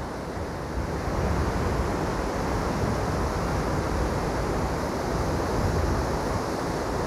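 Rough sea surf breaking and washing over a rocky shore, with wind gusting on the microphone as an uneven low rumble.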